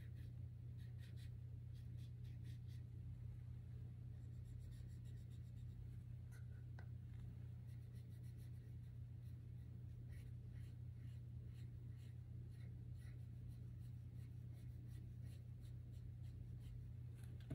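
Colored pencil scratching across pastel paper in short, faint strokes that come in clusters, over a steady low hum.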